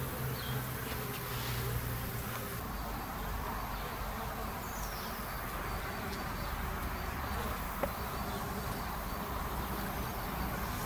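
Honeybees buzzing steadily around the entrance of a Warré hive, with one brief click about eight seconds in.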